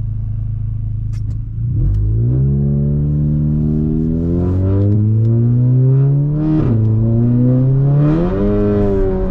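Turbocharged GC8 Subaru Impreza flat-four engine under hard acceleration. It runs steadily at first, then the engine note climbs from about two seconds in. The pitch drops at an upshift about six and a half seconds in, then climbs again and levels off near the end.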